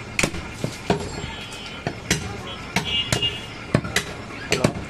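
Large butcher's knife chopping goat meat on a wooden tree-stump block: a run of sharp chops at an uneven pace.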